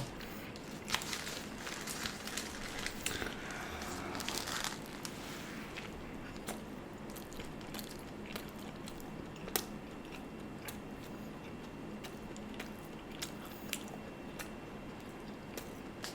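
Burger paper wrapper crinkling for the first few seconds, then biting into a burger and chewing close to the microphone, with scattered sharp mouth clicks.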